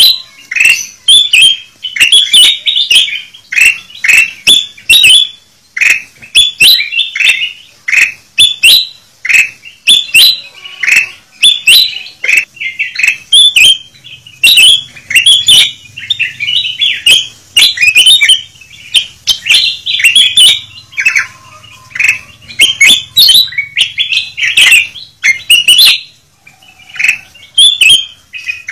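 Ruby-throated bulbuls (kutilang emas) calling noisily in short, sharp notes that come in quick, overlapping runs with hardly a pause. It is a lure call used to draw wild birds in.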